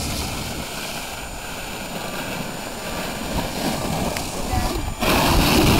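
Wind buffeting an outdoor camcorder microphone, with indistinct voices. About five seconds in, a louder rush of noise starts and runs to the end.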